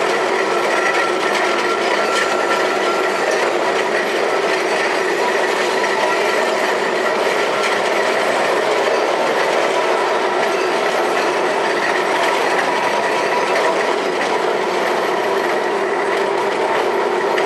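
Electric street tram in motion, heard from inside the car: a steady running noise of the wheels on the rails. A thin, high whine shows up most in the first few seconds.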